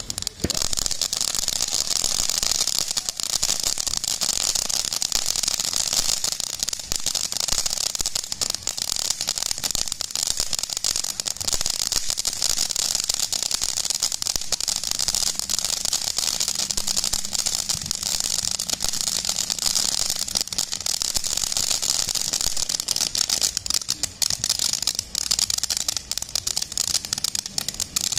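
TNT Fireworks' 3 Amigos ground fountain spraying sparks: a steady hiss with fine crackling running through it.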